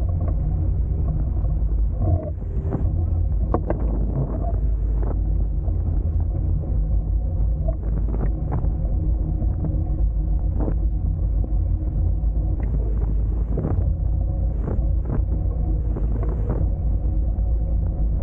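Hobie Tiger F18 catamaran running fast through the water: a steady low rumble of the hulls and wind on the boat-mounted microphone, with a few short sharp knocks and slaps scattered through.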